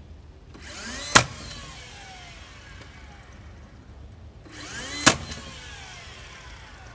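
Ridgid 18V cordless finish nailer fired twice into wood, about four seconds apart. Each time the motor spins its flywheel up with a rising whine, the solenoid engages the clutch and the nail is driven with a sharp crack, then the flywheel winds down with a falling whine.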